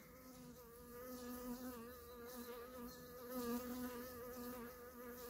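Honeybee buzzing in a steady hum close by, its pitch wavering slightly and swelling a little about three and a half seconds in. It is a defensive bee hovering at the person, one of bees the beekeeper calls unfriendly.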